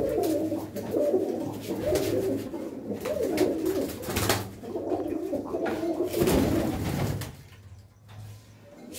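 Several domestic pigeons cooing together in an enclosed loft, their overlapping calls running on for about seven seconds and then dying away. A few short, sharp sounds break in along the way.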